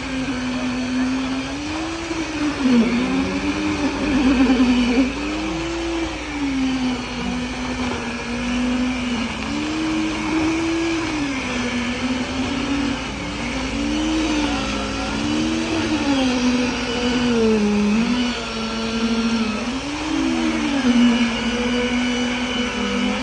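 Engine of concrete-pouring equipment running, its pitch swelling up and falling back over and over, roughly every two seconds.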